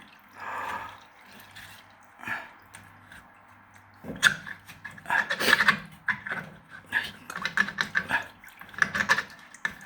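Water dripping and splashing at a washing machine, in a few separate splashes at first, then busier and more irregular from about four seconds in, over a low steady hum.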